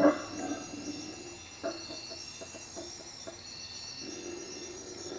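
Howler monkeys calling at night. A loud howl at the start fades within the first second, then comes a run of short grunts, and the howling builds again near the end. Insects trill steadily throughout.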